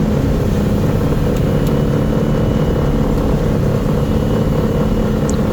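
John Deere 7720 combine running steadily while harvesting soybeans: an even, continuous machine drone with a faint steady high whine above it.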